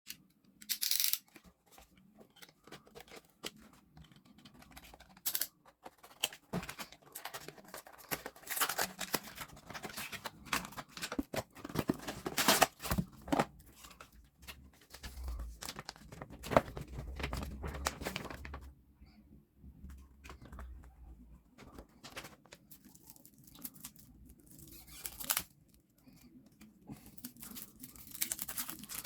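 Yu-Gi-Oh! Structure Deck packaging being torn open and handled by hand: irregular tearing, crinkling and rustling with short pauses.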